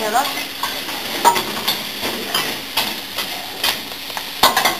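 Food stir-frying in a steel wok: a steady sizzle with irregular clanks and scrapes of the stirring utensil against the pan, the loudest clanks coming near the end.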